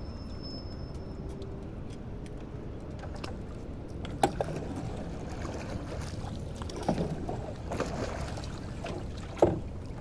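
An oar pushing and splashing in the water beside a small wooden boat, with knocks of the oar and gear against the boat, the two sharpest about four seconds in and near the end, over a steady low rumble.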